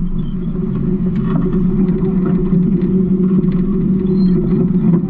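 Garbage truck's diesel engine running, a steady low rumble, with faint scattered clicks and rattles over it.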